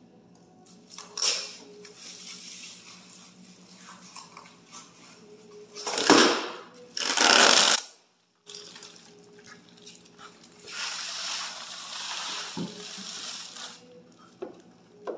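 Plastic wrapping crinkling and rustling as a long plastic-wrapped part is handled and pulled out of a wooden crate, with two loud bursts about six and seven seconds in and a longer stretch of rustling later.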